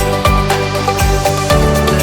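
Background music: an electronic track with a steady kick-drum beat and held bass notes.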